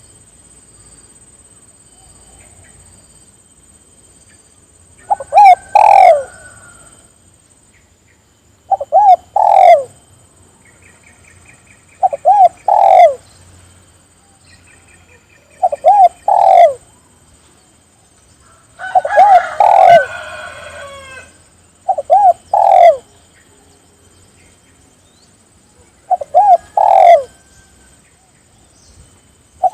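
Spotted dove cooing: a short phrase of two or three quick coos, repeated about every three and a half seconds, seven times. Faint high chirps of a small bird come in between.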